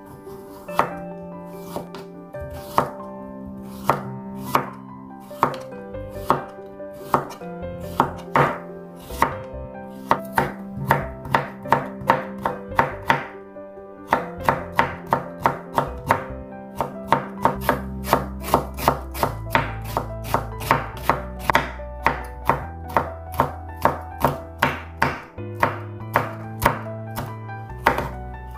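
Chef's knife slicing cucumber and then red chili on a bamboo cutting board: a crisp knock with each stroke, about one or two a second at first and faster, around three a second, in the second half. Soft background music plays underneath.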